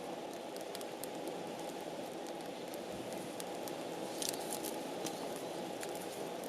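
Wood fire crackling in a Picogrill-style fire pit: scattered sharp pops and snaps, a small cluster about four seconds in, over a steady low rush of noise.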